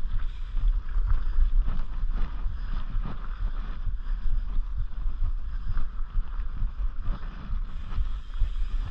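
Mountain bike rolling down a rough, rocky dirt trail: a low rumble of wind on the microphone, with many short knocks and rattles as the tyres and frame hit bumps and stones.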